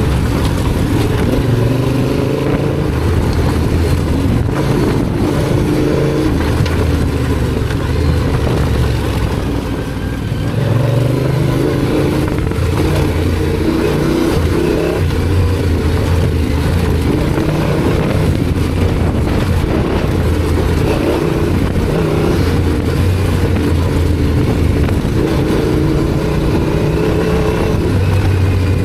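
Yamaha Ténéré 700's parallel-twin engine running under way, its note rising and falling with throttle and gear changes, with a brief dip about ten seconds in.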